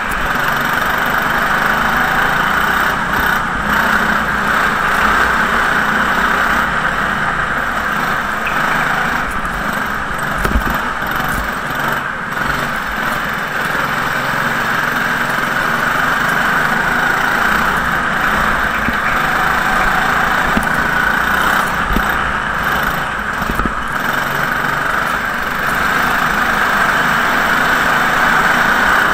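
Go-kart engine running steadily under throttle, heard from a camera mounted on the kart, with a few brief low thumps.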